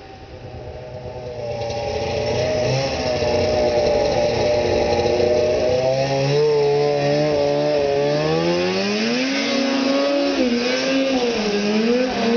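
Snowmobile engine approaching and growing louder over the first couple of seconds, then revving: about six seconds in its pitch climbs and then rises and falls several times.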